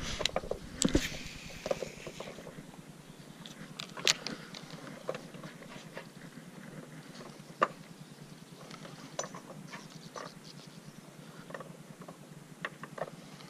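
Handling noise from a Shimano baitcasting reel and fishing line: scattered small clicks and ticks, the sharpest about four seconds in and again near eight seconds, over a faint hiss that fades after the first couple of seconds.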